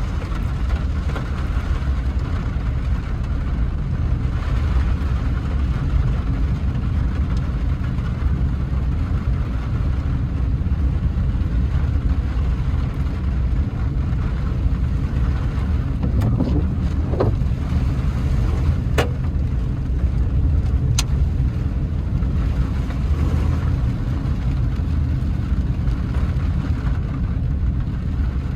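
A car driving through heavy rain: a steady low rumble of engine and tyres under an even hiss of rain, with a brief squeak past the middle and a few sharp ticks after it.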